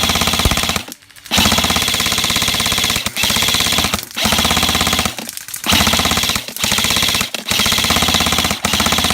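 Airsoft gun firing on full auto, close by, in repeated long bursts of rapid shots broken by short pauses.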